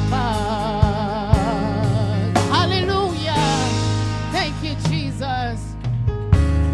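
Gospel music: a lead voice holding notes with wide vibrato and sliding through quick runs, over bass and a drum beat.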